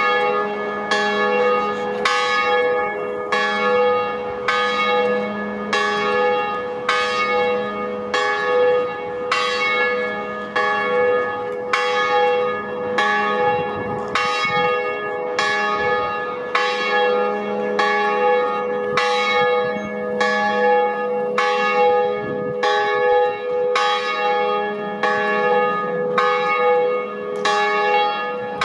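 Liverpool Metropolitan Cathedral's bells ringing in a steady, even run of strokes, several pitches in turn, each note ringing on under the next.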